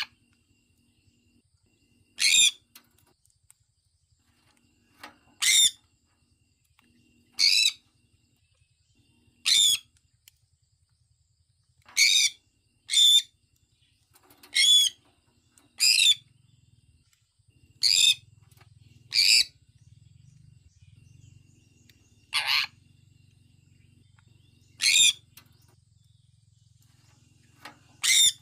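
Sun conure calling: short, loud calls repeated every one to three seconds, about thirteen in all, with two coming close together a few times.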